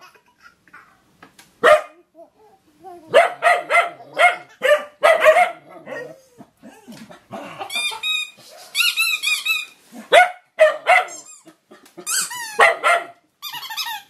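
Dog barking in quick runs of barks, with high, wavering yelps in the middle and again near the end.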